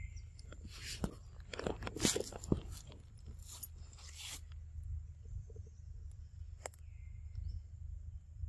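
A macaque chewing crunchy food close by, with a run of crisp crunches over the first four seconds or so. After that there are only a few faint clicks.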